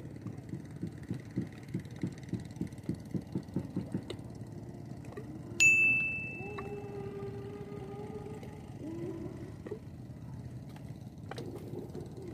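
A small boat engine chugging, its beats quickening, then fading out after about four seconds. About halfway through, a single sharp metallic ding rings out and dies away over about a second.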